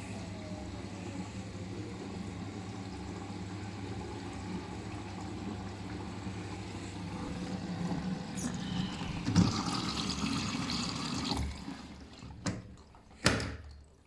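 Siemens iQ500 washing machine in its final rinse: a steady low machine hum, then water rushing through the machine for a few seconds, cutting off, followed by two sharp clicks.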